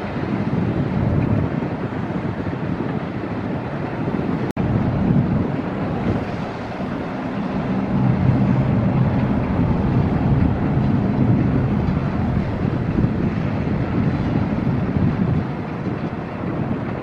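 Wind buffeting the microphone over a steady low rumble of harbour background noise. The sound cuts out for an instant about four and a half seconds in.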